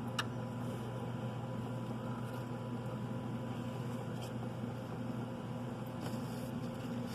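Steady low electrical hum, with a sharp click just after the start and a few faint ticks of light handling later on.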